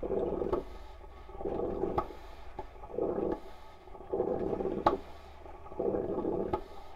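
Old Farberware electric percolator perking hard: about five gurgling spurts, roughly one every second and a half, as boiling water surges up the stem into the glass knob, with sharp ticks among them.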